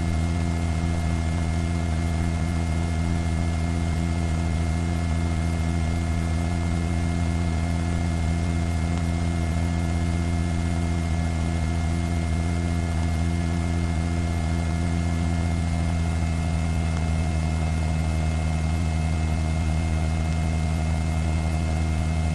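Steady drone of a helicopter heard from on board: a constant low hum with several steady higher tones over it, unchanging throughout.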